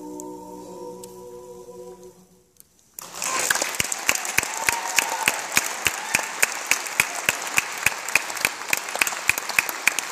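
A barbershop quartet's four-voice a cappella closing chord is held and then fades out, followed by a brief moment of quiet. Audience applause breaks out about three seconds in and carries on, with one pair of hands clapping close and loud about three or four times a second.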